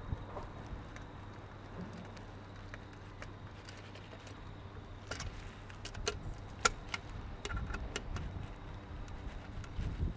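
Light metallic clicks and taps of a hex key and bolts against an aluminium bash plate and its linkage guard as the two are bolted together. The clicks are sparse at first and come more often in the second half, over a steady low hum.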